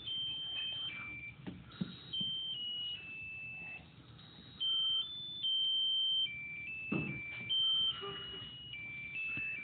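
Musical lotus-flower birthday candle's sound chip playing a tinny electronic melody, one beeping note at a time.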